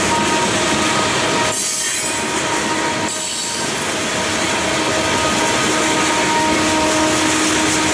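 Freight train of covered hopper cars rolling past, wheels running loudly on the rails with a steady squeal of several high tones over the rolling noise.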